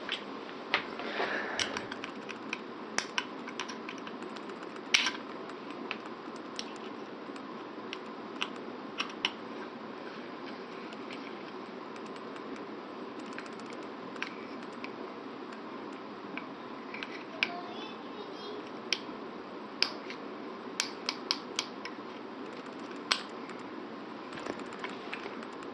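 Allen wrench clicking and scraping against a screw in a polymer shotgun rail mount as the screw is tightened down: scattered light, irregular clicks over a steady background hiss.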